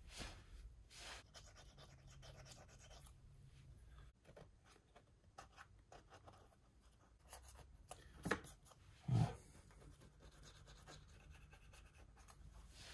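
Faint scraping and scratching of a utility-knife blade cleaning old gasket material off the water-pump mating face of a Citroën BX Sport engine block, with two brief louder sounds about eight and nine seconds in.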